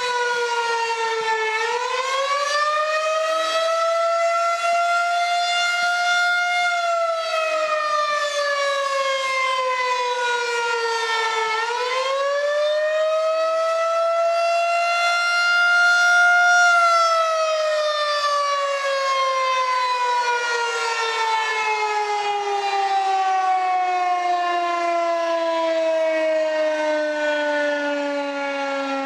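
Rotating outdoor tornado warning siren sounding a wail for a tornado drill: its pitch falls and rises twice, then slides steadily down through the second half.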